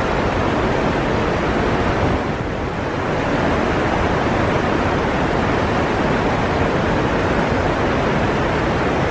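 Steady rush of a small waterfall and fast-flowing river water, with a brief slight dip in level about two and a half seconds in.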